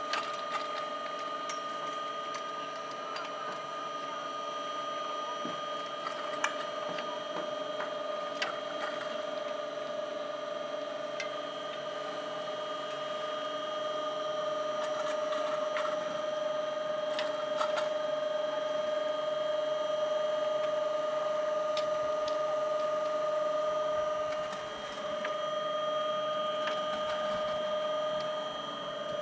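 Steady mechanical whine made of a few fixed tones, with a few faint clicks, briefly dipping in level near the end.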